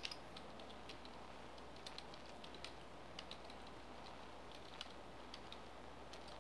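Faint, irregular keystrokes on a computer keyboard as a command is typed, a few clicks a second, over a faint steady low hum.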